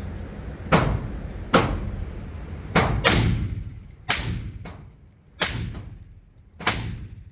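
Suppressed gunshots, about seven at uneven intervals, each with a short echoing tail off the walls of an indoor range.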